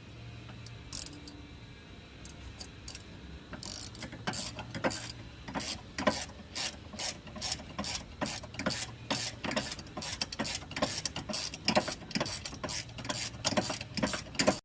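Socket ratchet clicking as nuts are tightened down, at a steady rhythm of about three clicks a second from roughly four seconds in, with only a few faint clicks before that.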